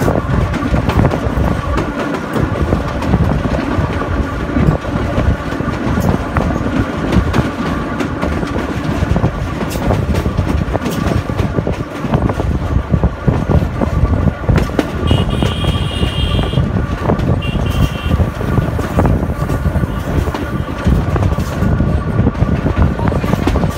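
Sóller railway's narrow-gauge electric train running, heard through an open carriage window: a steady rumble and clatter of wheels on the track, with a faint steady whine. A little past halfway, two short high-pitched toots, the first about a second and a half long, the second brief.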